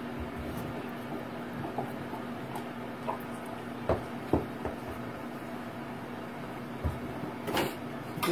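A small toy ball dropped by a dog, bouncing on a wooden floor: two quick knocks about four seconds in, with a few more single knocks later, over a steady low room hum.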